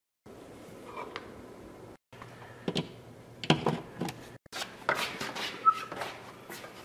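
A series of sharp clicks and knocks from an electrical plug being pushed into a wall outlet and an extension-cord reel being handled.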